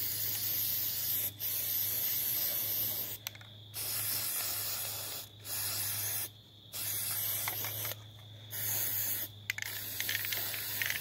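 Aerosol spray paint can spraying in a string of bursts of one to two seconds each, with short pauses between them.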